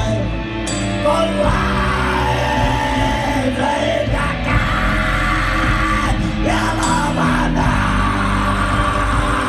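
Live rock band playing, with electric guitar and keyboard under a sung and shouted vocal, heard from among the audience in the hall.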